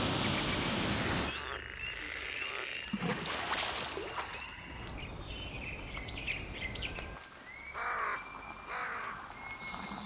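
Nature soundscape: rushing water for about the first second, then a mix of bird calls and chirps, with a few lower arched calls about eight seconds in and quick repeated chirps near the end.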